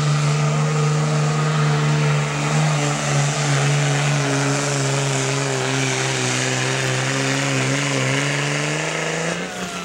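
Dodge Ram's Cummins turbo-diesel engine running with a steady droning note. Its pitch sags slightly in the middle and rises again near the end as the truck is lined up and hooked to the pulling sled.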